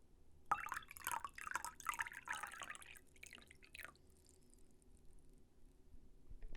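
Water poured into a container, splashing in uneven spurts that shift in pitch, starting about half a second in and trailing off about four seconds in.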